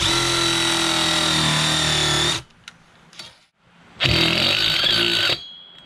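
Cordless power tools driving a screw into a steel lawn tractor pulley: an impact driver runs steadily for about two and a half seconds, then, after a pause, a cordless drill runs for about a second and a half.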